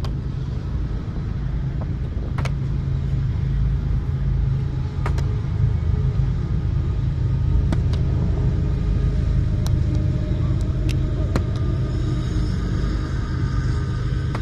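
Steady low vehicle rumble with a constant low hum, and a few sharp clicks scattered through it.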